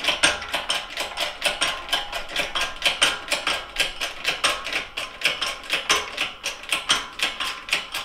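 Handle of a 20-ton shop press's hydraulic bottle jack being pumped, a fast steady run of light metallic clicks, about four or five a second, as the press pushes a bearing out of a rotary engine part.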